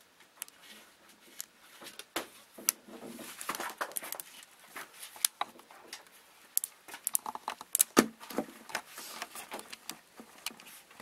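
Irregular scratching and clicking of stag beetles' clawed legs and mandibles on a bark-covered log as they grapple. There is a sharper knock about eight seconds in.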